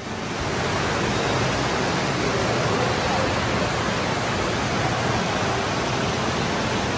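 Loud, steady rushing noise with no distinct events, with faint voices mixed in.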